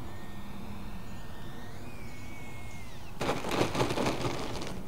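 Electric motor and propeller of an E-flite Ultimate 3D RC biplane whining, its pitch sliding up and down with the throttle. About three seconds in, a louder noisy rush takes over for a second and a half.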